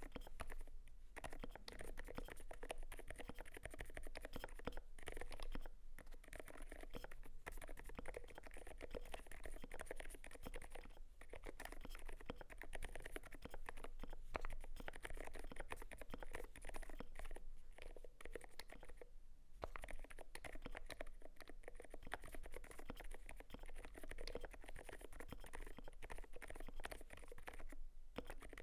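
Continuous fast typing on a Glorious GMMK Pro mechanical keyboard with lubed ZealPC Sakurio linear switches, a polycarbonate plate and XDA keycaps. It is a dense run of keystroke clacks, broken by a few short pauses.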